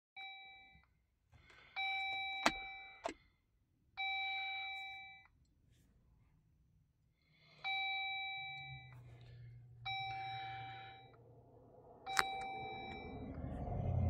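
Jeep instrument-cluster warning chime sounding six times, each a bright ding of about a second that fades, as fault warnings such as blind-spot alert unavailable and AutoPark disabled come up on the dash. Two sharp clicks come in close succession early on, and a low hum builds near the end.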